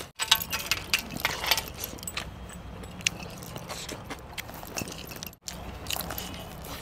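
Eating sounds: chewing, with scattered small clicks and clinks, over a faint steady hum. The sound cuts out for an instant twice.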